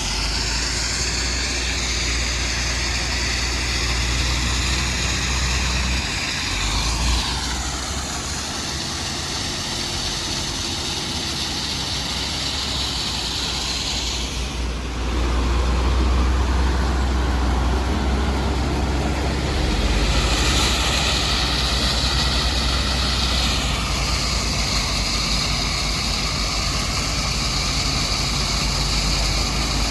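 Heavy earthmoving machinery running steadily: a deep engine drone under a high whine that shifts in pitch a couple of times early on and grows louder about halfway through.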